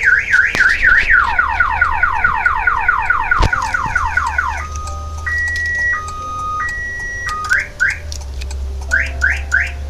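Aftermarket car alarm siren going off, set off by a door being opened while the alarm is armed. It cycles through its tones: a fast warble, then a run of falling sweeps about three a second, then a slow two-tone high-low, then short rising whoops near the end.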